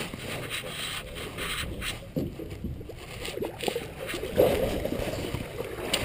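River water sloshing and splashing against a boat's side as a landing net is dipped in and lifted out of the water.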